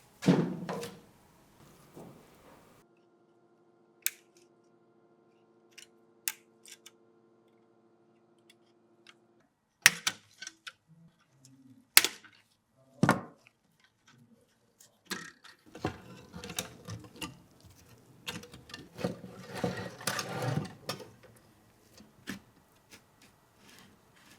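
Parts of a rusty Mosin-Nagant obrez being handled: a knock at the start, scattered sharp metallic clicks and three louder clicks, then several seconds of scraping and rubbing.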